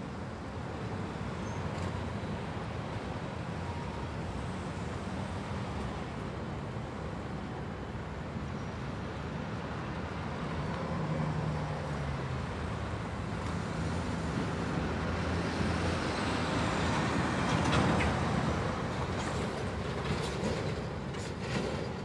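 Close-up city street traffic: a steady wash of vehicle engines and tyres with a low engine hum underneath. The noise swells to its loudest about three-quarters of the way through, and there are a few sharp clicks near the end.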